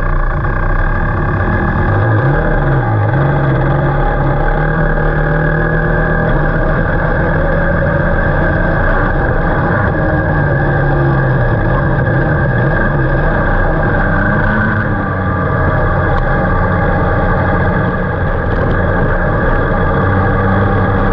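Two-stroke Rotax Max kart engine running steadily at moderate revs, heard up close from on board, its pitch wavering slightly up and down with throttle.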